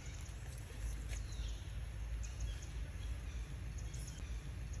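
Outdoor ambience: a steady low rumble with faint, scattered high-pitched chirps above it.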